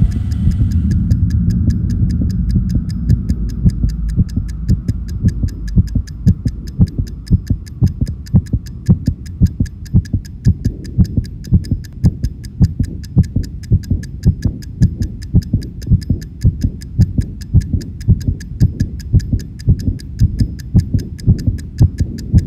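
Mechanical oven timer ticking fast and evenly over regular low thumps about twice a second, with a low hum under the first few seconds. It all cuts off suddenly near the end, as the timer runs out.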